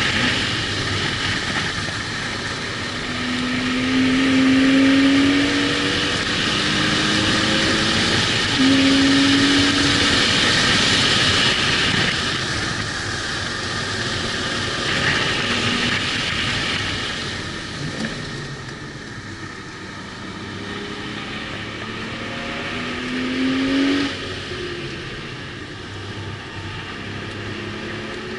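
A car's engine under hard acceleration, its note rising again and again as it pulls up through the gears, over steady wind and tyre noise. It eases off for a quieter stretch about two-thirds of the way through, then climbs again.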